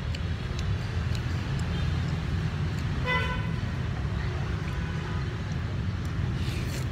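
Steady rumble of street traffic, with a vehicle horn tooting briefly about three seconds in. Faint light clicks of a spoon and chopsticks against a ceramic bowl.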